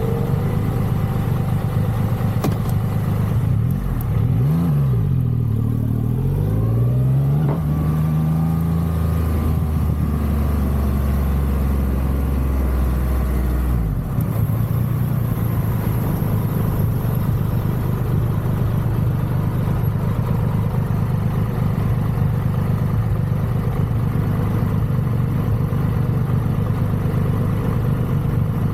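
Triumph Rocket 3's big inline three-cylinder engine ticking over, blipped once about four seconds in, then pulling away with a rising note that holds for several seconds. It eases off about halfway through and settles into a steady lower running note.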